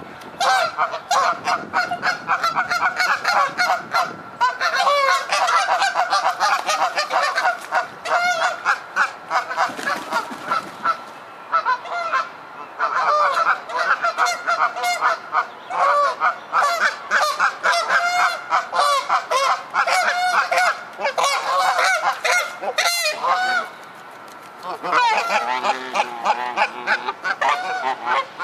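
Canada geese honking over and over, several birds calling in quick, overlapping bursts, with a short lull near the end. It is the aggressive honking of rival geese squabbling.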